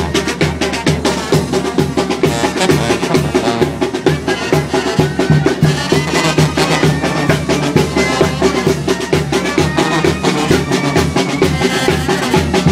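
Brass band (banda) with drums playing lively dance music with a steady beat.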